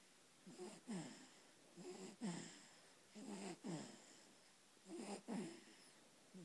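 Snoring in quick, regular breaths: four snores, about one every second and a half, each made of two short strokes that fall in pitch.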